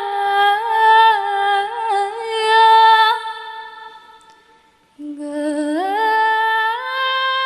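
A woman humming a slow melody in long held notes. It fades out about four seconds in and comes back about a second later with a rising note.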